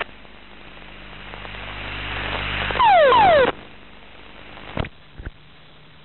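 Cockpit audio of a military aircraft as its crew ejects after a bird-strike engine failure: a rising rush of noise, then a loud half-second blast carrying two falling tones, then two sharp clicks.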